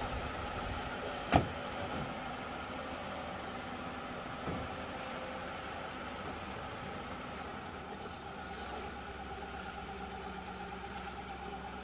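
A heavy car door on a vintage limousine slams shut about a second in; this is the loudest sound. A softer knock follows a few seconds later, over a steady hum of the car's engine idling.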